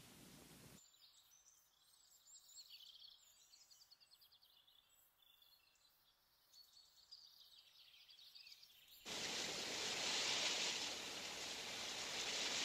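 Birds singing faint, quick high trills and chirps over a quiet background. About nine seconds in, a loud, steady rush of wind through leaves starts suddenly and covers them.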